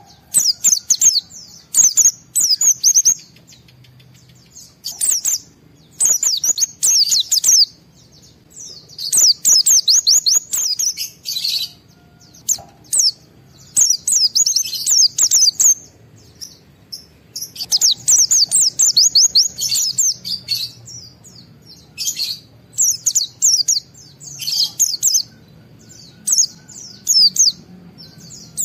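A white-eye (pleci) singing a fast, excited 'ngalas' song: rapid strings of high chirps and trills in bursts of one to three seconds, broken by short pauses, about ten bursts in all.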